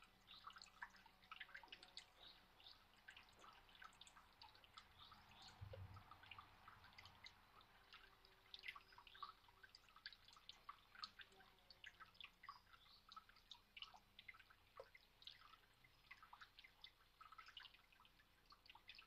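Small garden water fountain, its spout trickling into the basin: faint, irregular drips and splashes.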